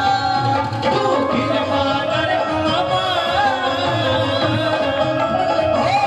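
Indian devotional bhajan music: a wavering melody line over tabla-style hand-drum percussion, playing without a break.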